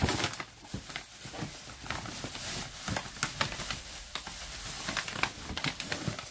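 Packaging crinkling and rustling in irregular crackles as items are handled and taken out of a box.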